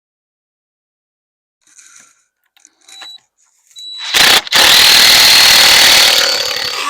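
Power drill driving a screw into framing lumber: a short burst, then a longer steady run with a high motor whine that lasts to the end.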